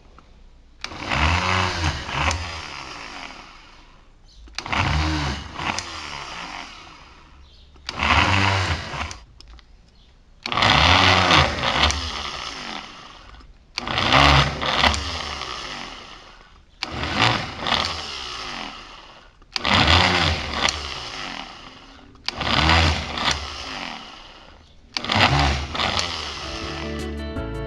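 Homemade bench drill powered by a recycled blender motor, switched on in short runs about every three seconds: each run starts abruptly, whines up to speed and winds down. Nine runs in all.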